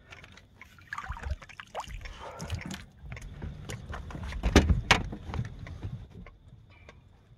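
A catfish in a landing net being brought aboard and set down on the boat floor: water splashing and dripping off the net, with a run of knocks and thumps, the loudest a little past halfway.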